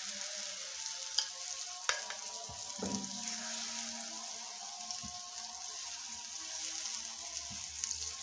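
Vegetable paratha batter sizzling steadily in a hot oiled non-stick frying pan as it is spread with a ladle. A few sharp clicks of the ladle against the pan come in the first three seconds.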